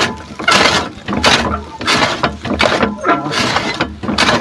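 Grass being cut by hand in a steady rhythm of crisp, tearing strokes, about six of them, roughly one every 0.7 seconds.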